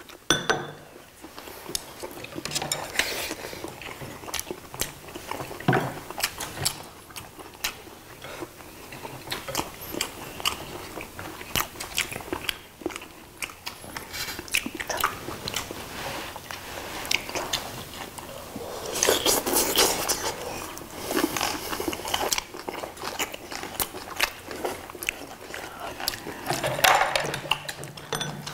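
Close-miked eating: chewing and biting into braised dried pollack and crunchy bean sprouts, with frequent sharp clicks of metal tongs, scissors and chopsticks against plates, and a louder stretch of noisy eating about two-thirds of the way through.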